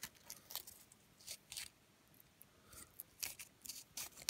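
Foil tape crinkling and crackling faintly as it is pressed and wrapped by hand around bearings: scattered short, irregular crackles.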